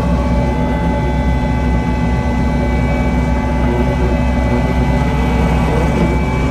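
Kubota SVL75-2 compact track loader's four-cylinder diesel engine running steadily at raised throttle as the machine drives, heard from inside the cab.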